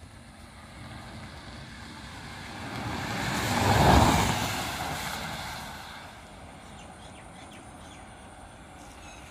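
A car passing close by: its tyre and engine noise swells to a peak about four seconds in, then fades over the next two seconds into a low, steady background of road noise.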